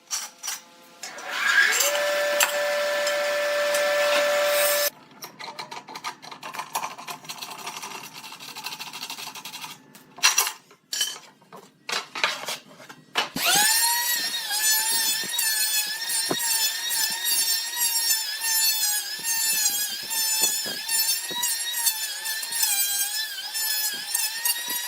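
Power tools working wood. A motor spins up and runs steadily for a few seconds, then comes a stretch of irregular scraping and knocking on wood. From about halfway through, a high-pitched motor runs steadily, its pitch wavering slightly as it works.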